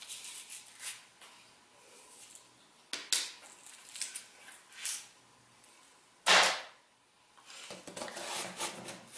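Knife blade drawn against a metal sharpener in a handful of short scraping strokes, with one loud swish about six seconds in. Near the end the knife starts slicing through the packing tape on a cardboard box.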